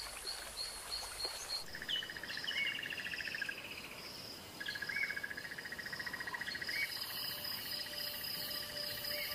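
Insects chirping and trilling: a short chirp repeating about three times a second, then, after an abrupt change about a second and a half in, long pulsing trills that overlap and recur every few seconds.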